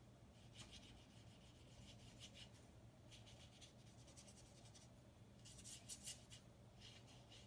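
Faint swishes of a paintbrush's wet bristles rubbing across watercolor paper, in short strokes at uneven intervals, a quick run of strokes about six seconds in the loudest.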